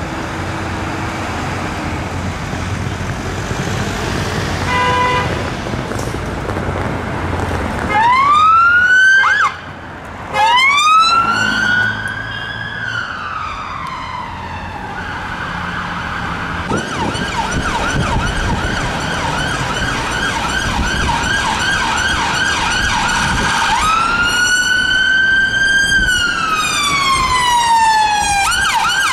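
Emergency vehicle sirens over city traffic. A police car's siren wails, rising, breaking off briefly and then rising and falling again. A second emergency car's siren follows, switching between a fast yelp and a slow rising and falling wail. A brief horn-like note sounds about five seconds in.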